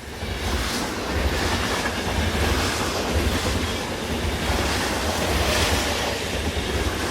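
A train running along the track: a steady low rumble under a noisy rushing haze that swells and eases every second or two.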